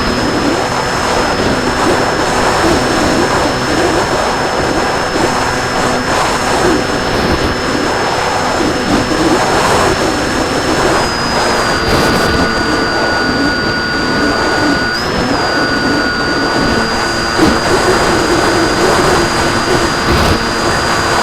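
RC plane's motor and propeller running steadily, picked up by the onboard camera, with a high whine and wind rush over the airframe. The whine shifts slightly in pitch a little past the middle as the throttle changes.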